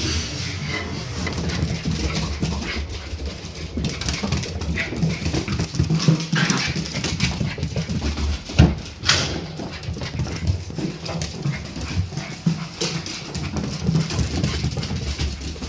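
Two Shiba Inu puppies play-fighting: scuffling and many short knocks of paws and bodies on the floor, with small dog vocal noises, and one sharp, louder knock about nine seconds in.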